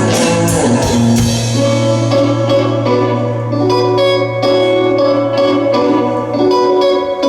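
Rock band playing live: guitars over bass and drum kit, an instrumental passage without singing. A held low bass note drops out about a second before the end.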